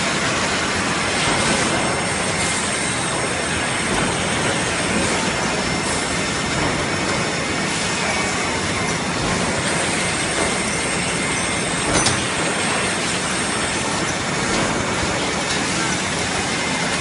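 Zobbio OMFS 15-station CNC transfer machine running: a steady mechanical whir and hiss with faint steady high whines over it, and one sharp click about twelve seconds in.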